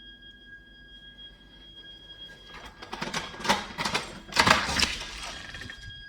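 Continuous high-pitched shrieking whistle from a heating system's heat interface unit (HIU) and pipework, an abnormal fault noise. About two and a half seconds in, a loud burst of clattering and rustling covers it for about three seconds, then the whistle is heard again.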